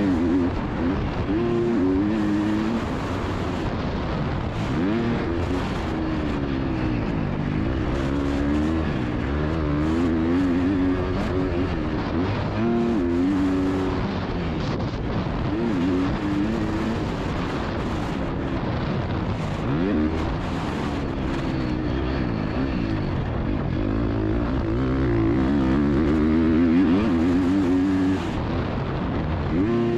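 The 2022.5 Husqvarna FC250's single-cylinder four-stroke engine is revving hard and dropping back over and over as the throttle is opened and closed and the gears are shifted. It is heard from a helmet-mounted camera.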